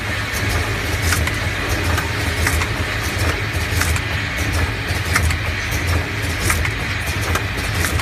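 Automatic eye drop filling, plugging and capping line running: a steady low hum from the vibratory bowl feeders, with irregular light clicking of the plastic plugs and caps as they feed and are pressed on.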